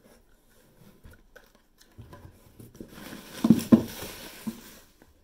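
Bubble wrap being pulled out of a cardboard box: light rustles at first, then a denser crinkling in the second half with two quick knocks against the box.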